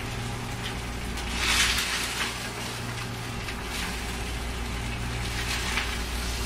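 Swordfish steak frying in a nonstick pan: a steady sizzle over a low hum, growing briefly louder about a second and a half in.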